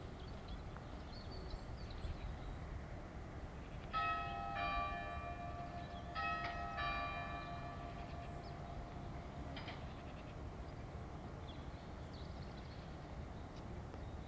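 Church bell struck four times, in two pairs about two seconds apart, each note ringing on for a while, over a steady low outdoor background noise.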